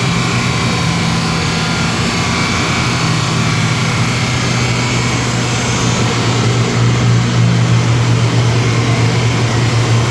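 Nissan Skyline R32 GT-R's twin-turbo RB26 straight-six running at a steady speed on a chassis dyno, a constant droning note that gets somewhat louder about six and a half seconds in.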